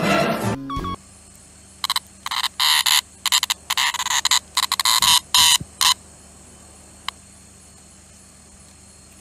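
Small green insect held in the hand giving about a dozen short, harsh buzzing chirps over some four seconds. Music stops abruptly in the first second, and a single click comes near the end.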